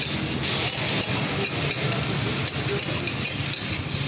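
Steel spatula scraping and clinking against a wok as paneer cubes and vegetables are stir-fried in sauce, with the food sizzling throughout. Under it runs a steady low rumble.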